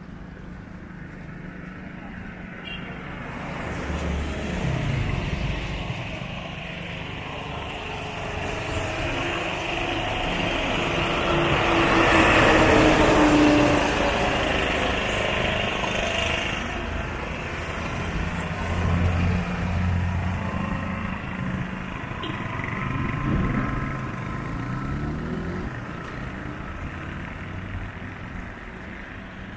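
Road traffic on wet asphalt: cars and motorcycles going by with engines running and tyres hissing on the wet road. The loudest vehicle passes about twelve seconds in, and smaller passes follow.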